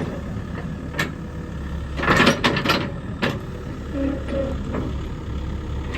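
Used XCMG excavator's diesel engine running steadily under operation, with several sharp metallic clanks and knocks, a cluster of them around two to three seconds in.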